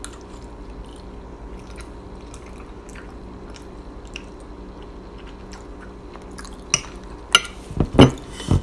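A person chewing a mouthful of mac and cheese, with faint small clicks over a steady low room hum. Near the end come a few sharp, loud knocks and thumps as a stainless steel tumbler is picked up from the wooden table.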